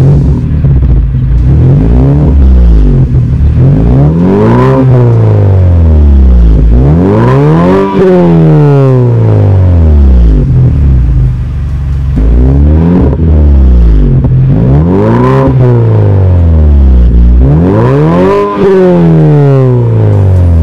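2014+ Mazda 3's four-cylinder engine, breathing through a CorkSport stainless straight-pipe cat-back exhaust, revved while the car stands on a lift. It idles, then climbs and falls back four times in two pairs, with a short idle between the pairs.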